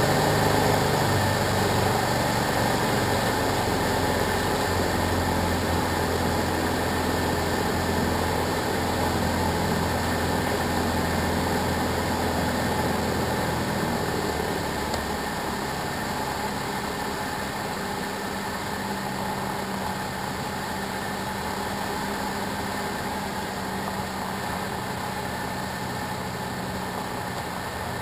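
SD-1 Minisport ultralight's engine and propeller droning steadily in flight, mixed with rushing airflow, heard inside the small cockpit. The drone drops somewhat in level about halfway through.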